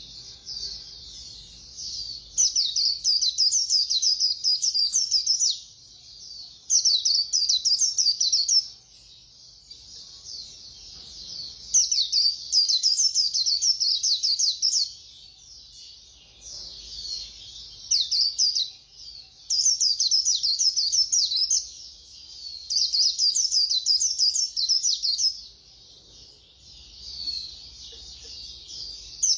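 White-eye (khuyên) singing its fast 'líu' song: rapid, high-pitched twittering phrases of two to three seconds, about seven of them, with softer twittering in the gaps between.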